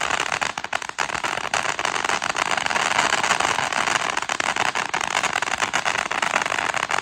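Brothers 'Fairies in a Jar' fountain firework burning, a steady hissing spray of sparks with dense fine crackling.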